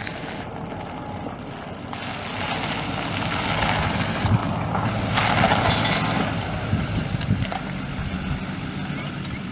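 The 6.6-litre V8 turbo-diesel engine of a 2009 Chevrolet Silverado 3500HD running steadily, with a louder rush of noise from about three to six seconds in.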